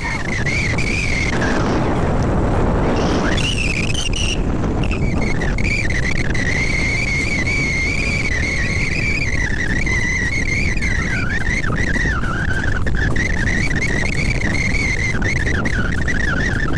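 Heavy machinery, most likely a bulldozer, running steadily: a low rumble with a continuous high squeal over it that wavers in pitch.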